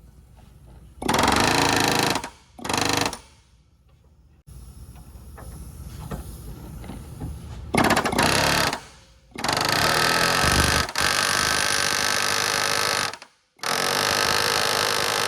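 A power tool hammering in repeated bursts of one to three seconds, six in all, working the ring-gear fasteners loose on a VW 02J transmission differential.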